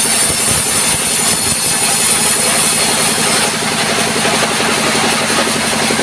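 Band sawmill running steadily: a low engine drone with a steady high whine from the saw, and a few low knocks in the first second or so as the log is handled on the carriage.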